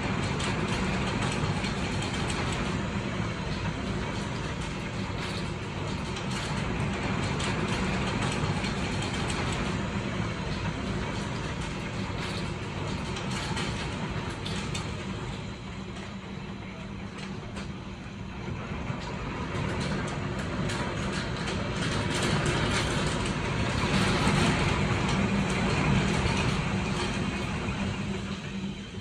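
Heavy hail coming down: a dense, continuous clatter of hailstones striking hard surfaces, growing heavier about three-quarters of the way through.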